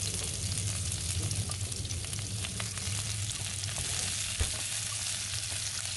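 Sliced onions sizzling and crackling as they fry in hot oil in a metal kadai, stirred with a spatula, over a steady low hum. One louder knock about four and a half seconds in.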